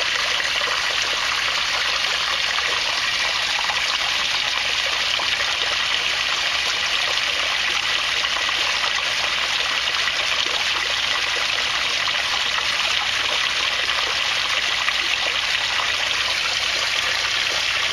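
Water falling in a steady stream from an inlet pipe into an aquaponics fish tank, splashing on the surface as the tank fills near the top.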